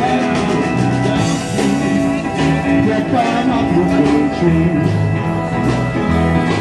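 Live blues band playing, with a steady drum beat and a bass line moving from note to note.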